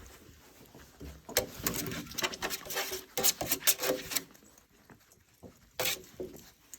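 Six-week-old Welsh Terrier puppies at play: a busy run of scrabbling, clicking sounds mixed with small puppy noises between about one and four seconds in, then a few scattered clicks and one sharper sound near the end.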